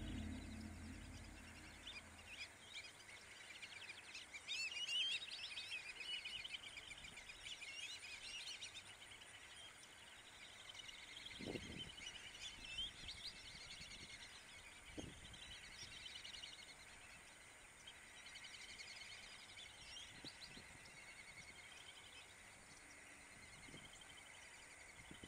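Black-bellied whistling ducks in a flock giving faint, overlapping high whistled calls, busiest a few seconds in and scattered after that. There are a couple of soft low thumps near the middle.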